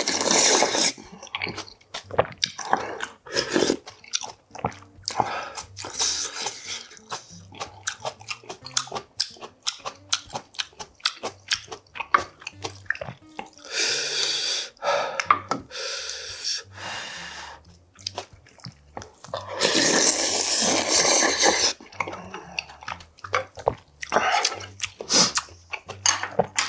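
A person slurping spicy ramen noodle soup from a wooden ladle, in long noisy pulls near the start, about halfway and around twenty seconds in, with wet chewing and small mouth clicks between them.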